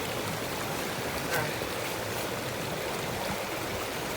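Small creek flowing steadily, with a brief light knock about a second and a half in.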